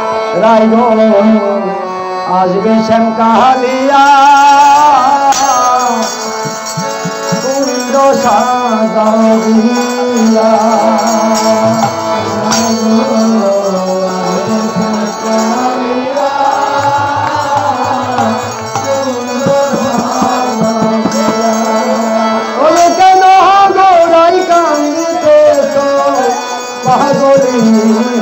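Bengali kirtan: a male lead singer sings a devotional song into a microphone, accompanied by a khol drum and hand clapping from the group.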